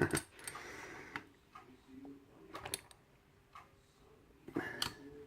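Scattered light clicks and taps of hands handling a lock and small tools, a few separate ticks a second or so apart.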